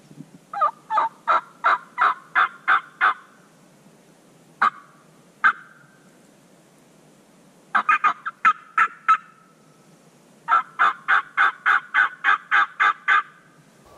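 Hen turkey calls made on a turkey mouth call: a run of about eight evenly spaced yelps, two single notes, a quick burst of sharp cutting notes, then another run of about nine yelps.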